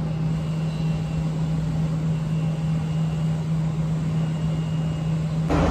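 Steady low mechanical hum with a faint background noise bed; about five and a half seconds in it gives way suddenly to louder, denser industrial background noise.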